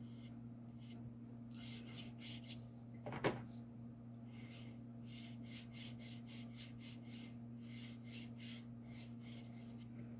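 Paintbrush loaded with gouache stroking and scrubbing across watercolour paper in a run of short, soft scratchy strokes, with one sharper tap about three seconds in.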